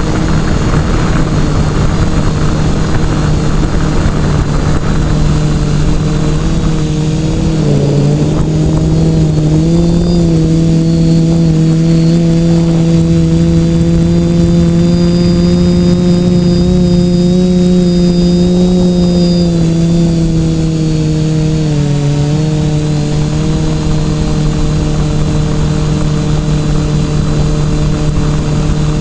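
TBS Discovery quadcopter's brushless motors and propellers giving a loud, steady multi-rotor hum, picked up by the camera on board. The pitch rises a little about eight seconds in, holds, then settles back down a little after twenty seconds in as the throttle changes.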